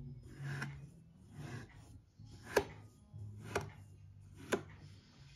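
Metal fork raking through kinetic sand, a soft grainy scrape about once a second, with a sharp click in three of the later strokes.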